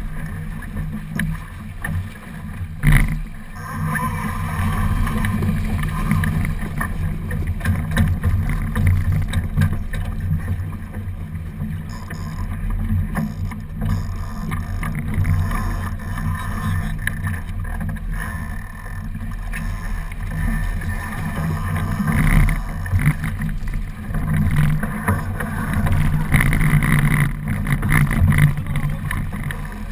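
Wind buffeting the onboard camera's microphone and water rushing past the hull of a small racing keelboat under sail, a steady low rumble. A single sharp knock about three seconds in.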